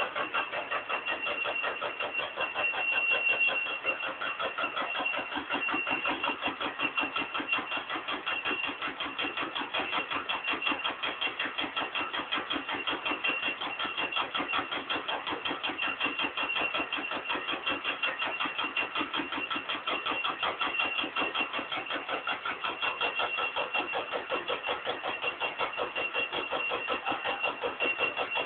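Stamping press line running continuously while strip metal is fed through an oil feed device's felt rollers: a rapid, even mechanical pulsing with a steady high whine over it.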